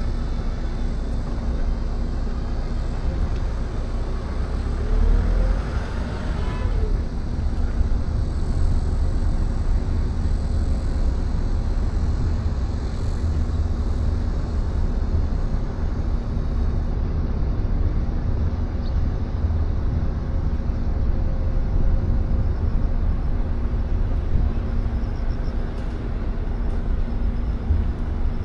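Car on the move: a steady low rumble of engine and road noise with a constant hum. A brief rising and falling whine comes about five to seven seconds in.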